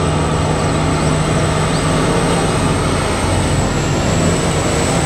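Giant BelAZ mining dump truck driving along a haul road: a steady deep engine drone under loud rumbling noise, with a thin constant high whine above it.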